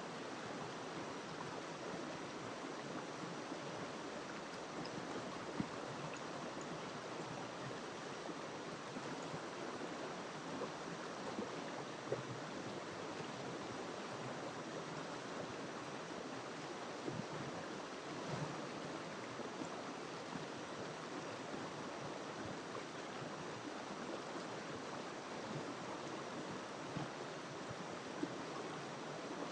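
River water flowing over rocks in a steady, even rush, with small splashes here and there.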